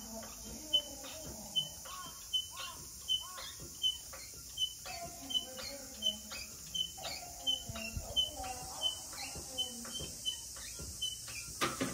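Birds chirping: a short high chirp repeated steadily, more than once a second, with other lower, falling calls among it.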